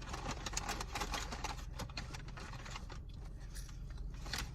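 Close chewing and crunching of food, a dense run of small clicks that thins out after about three seconds.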